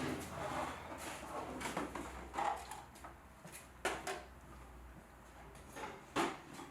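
About five separate knocks and clinks, with quiet between them, the loudest near the end.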